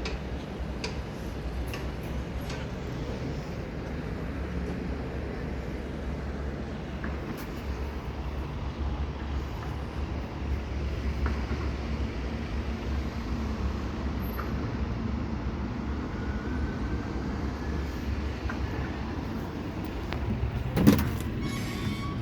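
UNIT passenger lift running: a steady low hum, with a faint rising whine in the second half and a sharp clunk near the end.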